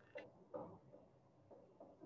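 Faint strokes and squeaks of a marker pen writing on a whiteboard, several short scratches in a row.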